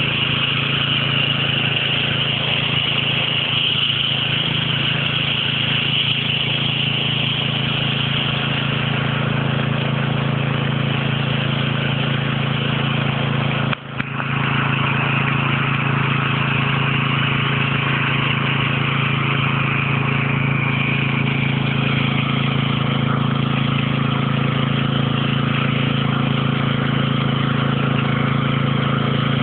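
Small engine-driven water pump running steadily at a constant speed, with water gushing from its outlet pipe.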